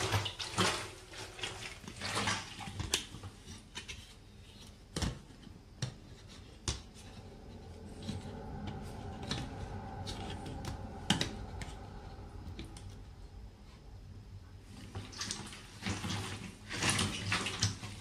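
Rubber boots treading on and grinding chopped vegetables, making wet squelching and crunching. It comes in dense bursts at the start and again near the end, with a few single knocks and clicks in between.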